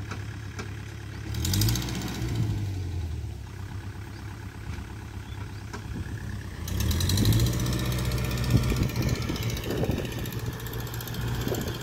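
Kubota L4508 tractor's diesel engine running and revving up twice, once about a second in and again past the middle, its pitch rising each time.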